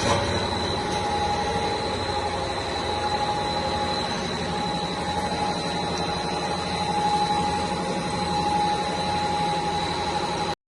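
A dog chew extrusion line running steadily: a low machine hum with a high, constant whine. It cuts off abruptly near the end.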